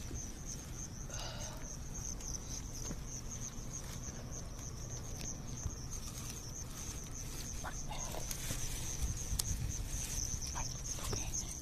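Insects trilling steadily in one continuous high-pitched note, with close rustling and a few small clicks of hands handling a fish in grass.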